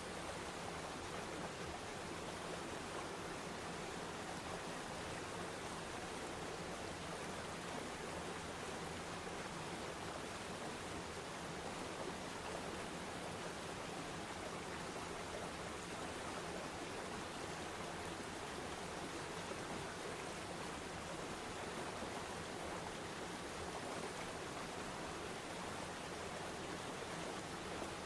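Waterfall and river rapids: a steady rush of water spilling over rocks.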